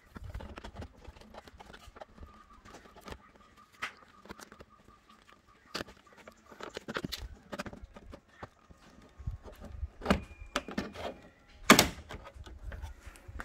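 Plastic trim-removal tool prying at the plastic DRL housing in the front bumper of a 2021 Tata Harrier, working it loose from its clips: scattered clicks, taps and scrapes of plastic on plastic, with the loudest sharp click near the end.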